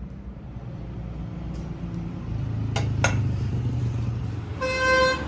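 Low, steady traffic rumble with two sharp clicks in the middle, then a vehicle horn honks once, steadily, for about half a second near the end.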